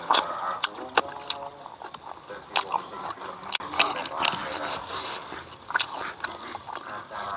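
Close mouth sounds of a person eating rice and smoked catfish by hand: chewing, with sharp wet lip smacks and finger-sucking clicks several times. A short hum of the voice comes about a second in.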